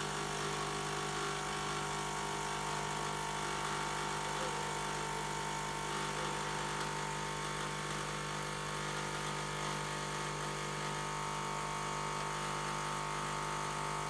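DeLonghi EC155 espresso machine's vibratory pump running steadily while pulling an espresso shot: an even buzzing hum that stops right at the end when the brew knob is turned off.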